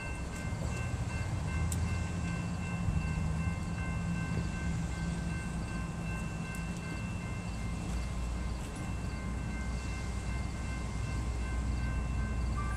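Distant BNSF freight train led by GE C44-9W diesel locomotives approaching: a steady low rumble that grows heavier in the second half, with thin steady high ringing tones over it.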